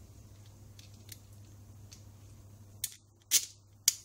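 Small handling clicks from fitting a motorbike alternator stator onto a bicycle wheel hub: a few faint ticks, then three short, sharp clicks in the last second and a half.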